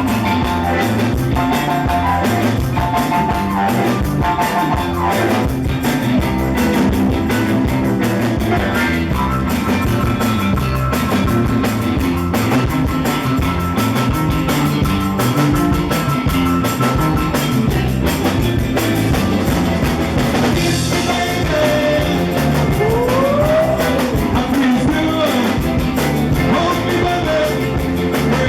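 Live rockabilly band playing an instrumental break: a lead line over a steady driving bass and drums, with a long held note in the middle and sliding bent notes a few seconds before the end.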